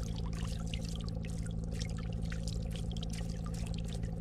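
Shallow lake water lapping and splashing at the shoreline, a rapid irregular patter of small splashes, over a steady low hum.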